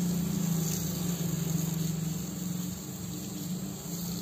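Water from a hose splashing onto smouldering rice-husk charcoal to quench the burning, over a steady low hum. The splashing eases off after about two seconds.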